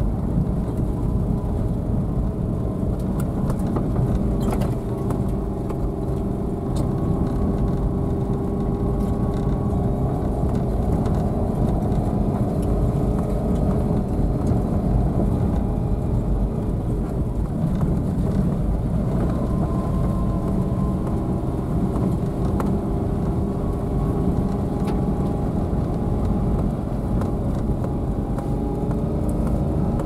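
Car engine running at low speed with the tyres rolling and rumbling over a rough dirt track, heard from inside the cabin, with a few sharp clicks along the way.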